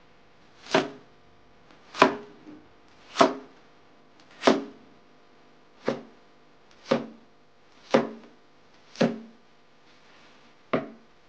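Chinese cleaver chopping through white radish onto a bamboo cutting board: about nine slow, single chops, roughly one a second.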